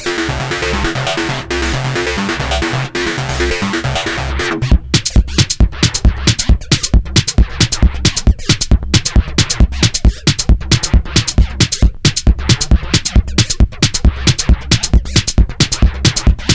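Electronic music played on a Korg Volca synthesizer: a busy sequenced synth pattern over a bass line, which about four and a half seconds in switches abruptly to a fast, sharp, repeating drum-machine pulse.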